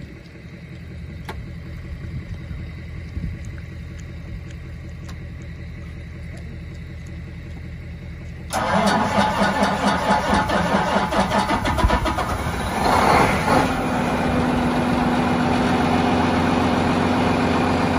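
John Deere 9420R tractor's diesel engine. A low, steady hum jumps suddenly to a much louder, rough sound about eight and a half seconds in, pulsing for a few seconds, then settles into a loud, steady drone with a clear tone from about fourteen seconds.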